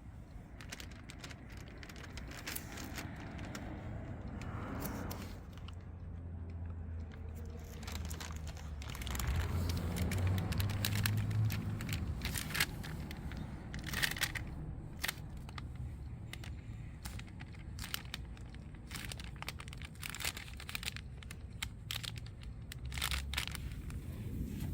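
Masking tape being pulled, torn and pressed down, with crinkling of masking material, in irregular crackles and ticks.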